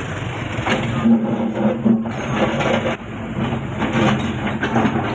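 Doosan excavator's diesel engine running steadily, with irregular cracking and crunching sounds over it.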